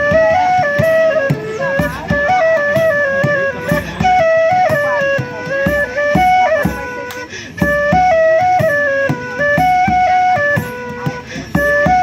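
A folk band playing a medieval tune in a set with a traditional Irish tune: a woodwind melody of stepping, held notes over a steady drum beat.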